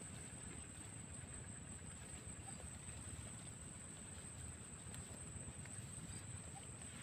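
Outdoor field ambience: a low, uneven rumble of wind on the microphone under a steady high-pitched whine, with a few faint ticks and rustles from the grazing herd; no goat calls.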